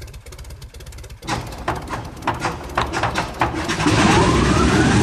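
Engine noise with crackling clicks, building up and rising in pitch, loudest over the last second.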